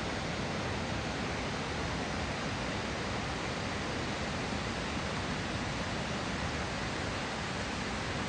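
Steady rushing roar of a distant waterfall, Magod Falls, a constant even hiss of falling water with no breaks.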